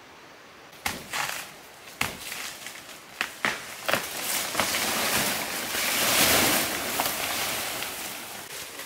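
Rustling foliage and leaf litter with sharp cracks of snapping twigs: the first crack about a second in, several more through the middle, and a longer swell of rustling that peaks around six seconds and then fades.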